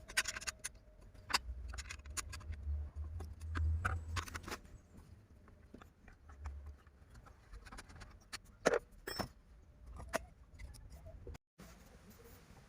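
Scattered clicks, taps and light metallic clatter of tools and chainsaw parts being handled, with a low rumble rising around the middle; the chainsaw is not running.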